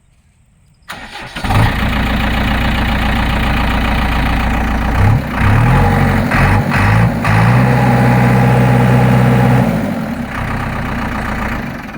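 A JCB 3DX backhoe loader's 76 hp diesel engine cranks and starts about a second in, then idles steadily. Around the middle it is revved up and down a few times, held at higher revs for a couple of seconds, then drops back to idle near the end.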